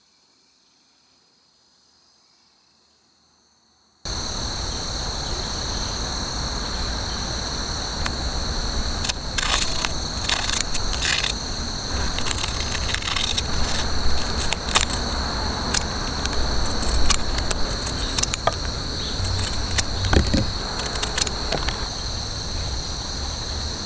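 A steady, high-pitched insect chorus that comes in suddenly and loud about four seconds in, after a faint version of it. Over it come repeated short, crisp snips and rustles of a paper tea-bag sachet being cut with scissors and its dry herbs being handled.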